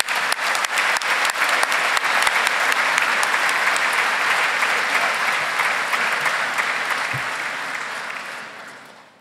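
Audience applauding, a dense wash of many hands clapping that fades away near the end.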